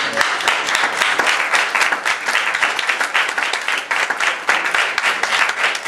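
Congregation applauding, many hands clapping together.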